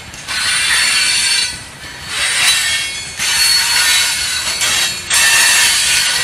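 Freight cars of a loaded rock train rolling past, their steel wheels squealing on the rails. The high-pitched squeal swells and fades about four times.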